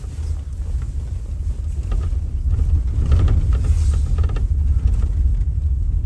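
Vehicle rolling over a rough dirt road: a steady low rumble with creaks and rattles.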